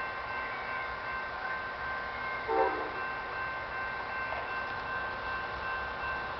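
Amtrak passenger train approaching at low speed behind a P42 diesel locomotive, with a short horn blast about two and a half seconds in.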